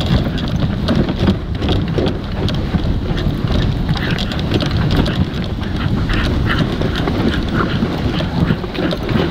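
Dog sled running behind its team over snow: a steady rushing scrape of the runners and wind buffeting the microphone, with many short, quick sounds from the dogs, likely panting.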